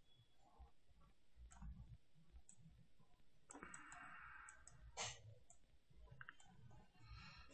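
Faint, scattered clicks of a computer mouse as anchor points and handles are picked and dragged, the loudest about five seconds in.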